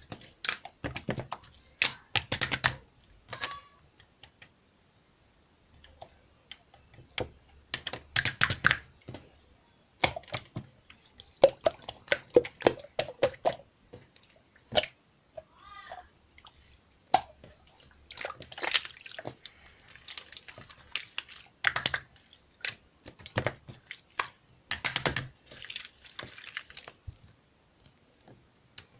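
Hands squishing, pressing and stretching slime: sticky clicks, small pops and crackles in irregular bursts, with short pauses between them.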